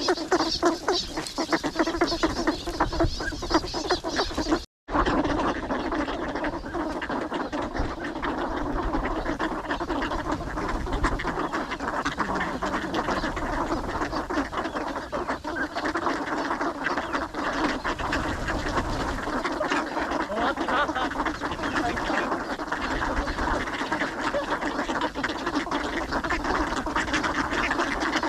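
A crowd of ducks quacking and chattering continuously at close range, with a brief break in the sound about five seconds in.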